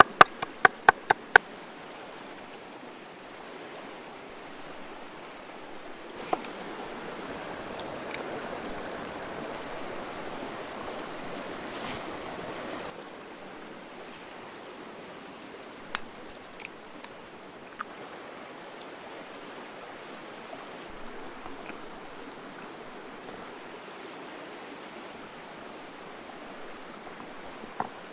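Steady rush of running water, as of a stream, swelling a little for several seconds in the middle. A quick run of sharp knocks in the first second and a half, with a few scattered clicks later.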